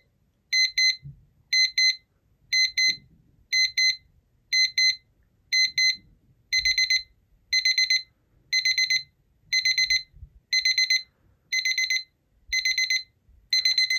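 Dreamsky compact digital alarm clock's alarm going off at full volume: bursts of rapid high-pitched beeps about once a second. About halfway through, the bursts grow longer and denser.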